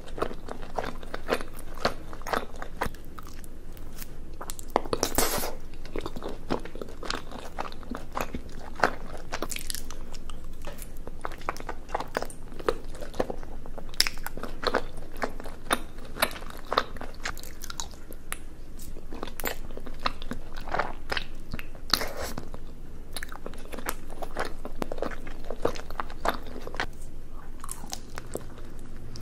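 A person biting and chewing sauce-coated sausage and chewy rice cake skewers (sotteok), close to the microphone, with many short smacking clicks of the mouth throughout.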